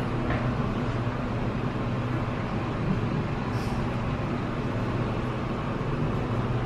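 Elevator car running: a steady low hum and rumble.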